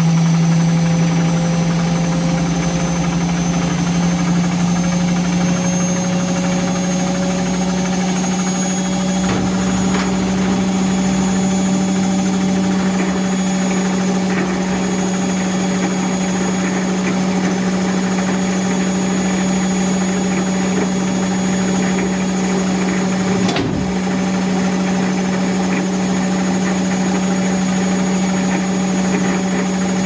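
Front-loading washing machine spinning at a steady high speed: a loud, constant motor hum with a thin high whine above it. A single brief click comes about two-thirds of the way through.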